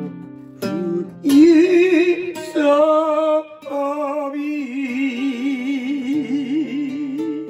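A man singing to his own strummed acoustic guitar. He holds a long note with wide vibrato through the second half.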